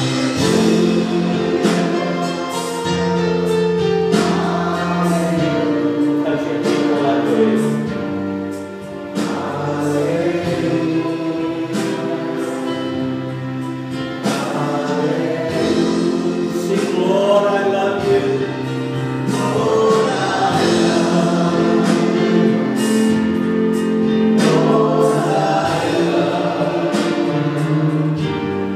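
Gospel worship song sung by a group of voices over a keyboard, with long held notes.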